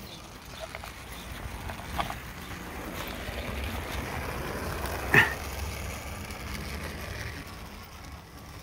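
Wind rumbling on the microphone, swelling in the middle, with a sharp click about two seconds in and a louder click about five seconds in.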